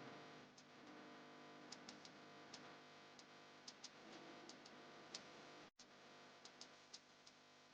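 Near silence, with faint, irregular sharp clicks over a faint steady hum.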